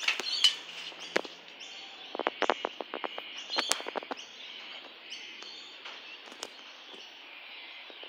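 Short high bird chirps over a steady outdoor background, with a run of sharp clicks and taps in the first half that then die away.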